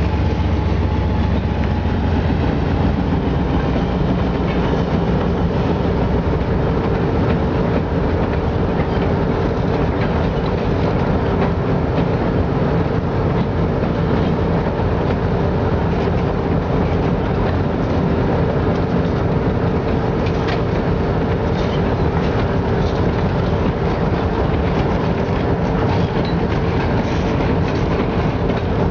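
Train rolling steadily along the track, wheels clicking over rail joints, with a steady hum. A deep low rumble dies away in the first couple of seconds.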